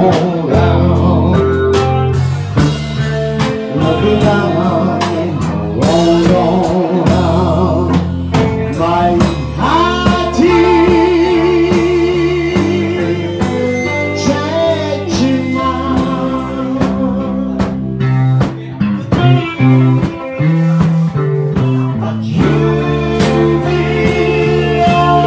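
Live blues-rock band playing loud through an amp: electric guitar, bass guitar and drum kit, with a singer. About ten seconds in there is a long note with a wavering vibrato.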